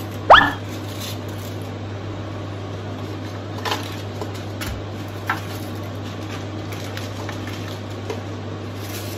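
A large clear plastic jar being handled: one sharp squeak rising steeply in pitch about a third of a second in, then a few light clicks, over a steady low hum and hiss.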